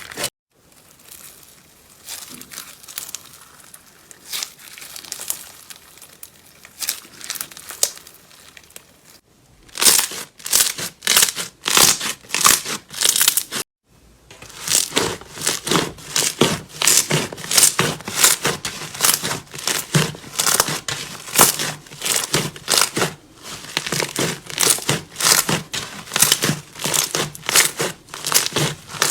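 Slime being pressed and squished by hand, giving crinkling, crackling pops. It is soft and faint at first, then turns to loud, rapid sharp crackles from about ten seconds in, with abrupt changes where clips are cut together.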